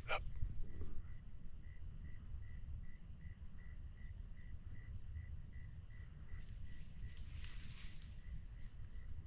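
Insect chorus in swampy woodland: a steady high-pitched buzz with a faint, evenly repeated chirp about twice a second, over a low wind rumble on the microphone. A brief rustle comes about seven seconds in.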